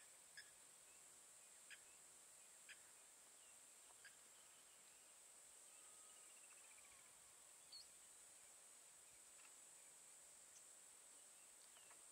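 Faint bushveld ambience: a steady high-pitched insect hum, with short sharp bird chirps about once a second in the first few seconds and a falling bird trill about halfway through.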